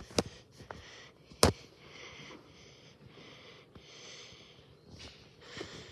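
A cat hissing repeatedly in long breathy hisses, a sign of a defensive, aggressive standoff. There is a sharp knock just after the start and a loud thump about a second and a half in.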